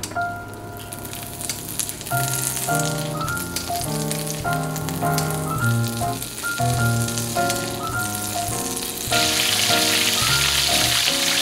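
Butter sizzling and foaming as it melts in a hot frying pan, with light background music over it; the sizzle becomes much louder about nine seconds in.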